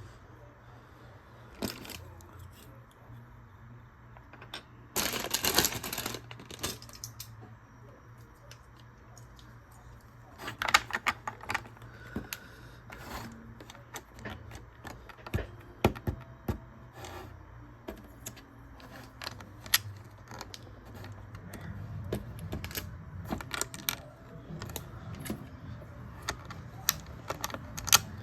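Small plastic Lego pieces being handled and snapped together: irregular sharp clicks and clatters, with a short rattling burst about five seconds in.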